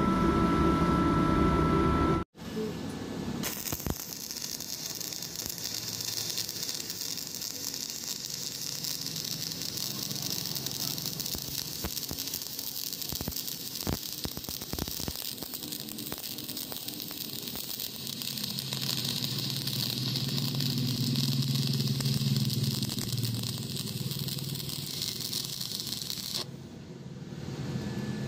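Stick (MMA) arc welding with an iBELL IBL M250-104 inverter welder set to 100 amps: the steady crackling hiss of the electrode arc starts a few seconds in, runs for about twenty seconds and cuts off near the end. A steady hum is heard for the first two seconds.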